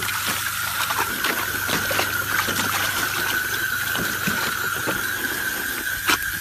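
Water spraying from a garden hose into a plastic paddling pool, a steady hiss with a constant high-pitched whine through it. Many short splashes come from a dog stepping about in the water.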